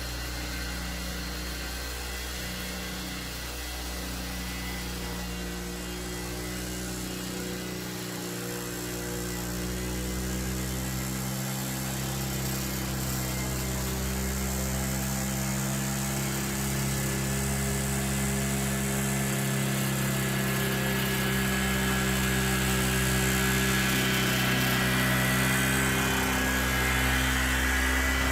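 Remote-controlled lawnmower running steadily as it mows, with a constant motor drone that grows gradually louder as it comes closer.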